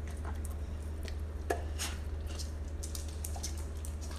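A dog chewing a piece of steak and smacking its lips: irregular wet clicks, the loudest about one and a half seconds in, over a steady low hum.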